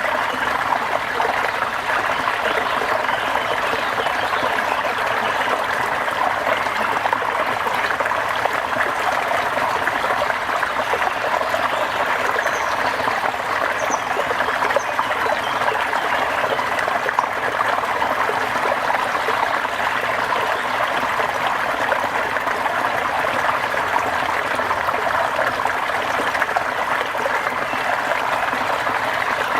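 Steady rain, an even hiss of falling water with no breaks.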